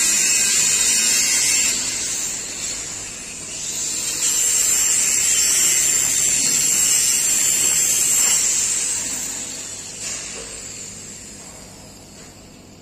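Angle grinder grinding steel: a loud, steady high-pitched whine. It eases off briefly about two seconds in and picks up again about four seconds in, then fades away over the last four seconds as the grinder stops cutting and spins down.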